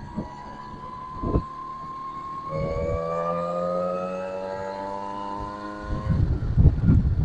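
1977 Honda Express NC50 moped's two-stroke engine running under way, its whine climbing steadily in pitch as it accelerates. About six seconds in, the engine tone drops out and loud, irregular low rumbles and thumps take over.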